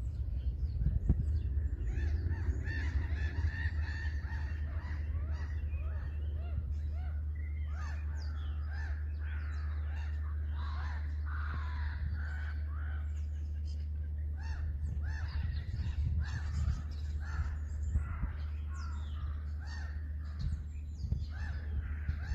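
Many crows cawing at once, a busy flock giving short harsh calls over and over with no break, over a steady low rumble.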